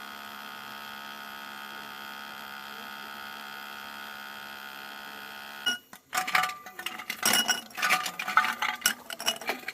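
A steady electric hum, even in pitch, that cuts off suddenly about two thirds of the way in, followed by a few seconds of irregular clicking and clattering.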